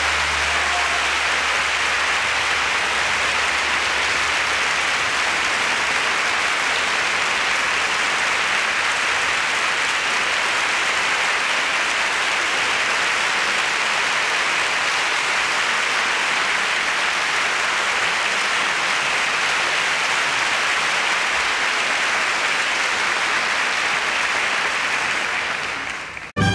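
Audience applauding steadily, the clapping breaking off just before the end.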